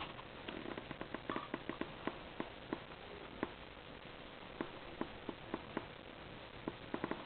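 Hamster chewing on an insect: irregular, sharp little crunching clicks, coming in quick clusters with short gaps between.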